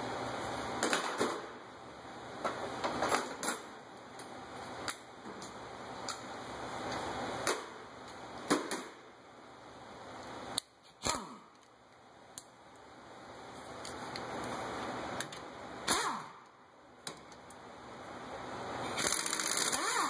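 Scattered metal clicks and clanks of tools and brake parts at a car's front brake caliper bracket. Near the end a cordless power tool whirs up on a bracket bolt.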